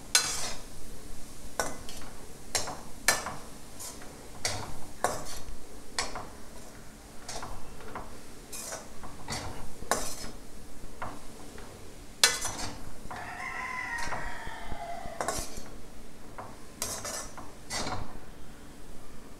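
Perforated metal ladle scraping and clacking against a kadai as grated cauliflower masala is stirred and sautéed, in irregular strokes about once a second. A drawn-out, wavering call falling in pitch sounds in the background about two-thirds of the way through.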